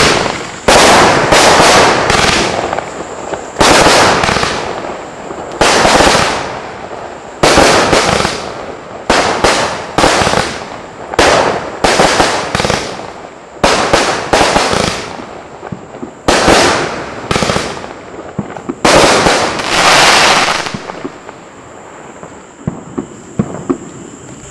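Night Terror multi-shot firework cake firing: a long run of loud shots and aerial bursts, often two or three in quick succession, each report trailing off in echo and crackle. The shots stop about 20 seconds in, leaving a fading crackle.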